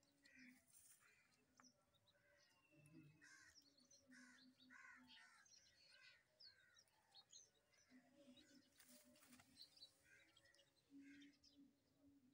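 Faint crows cawing and small birds chirping, a scatter of short calls.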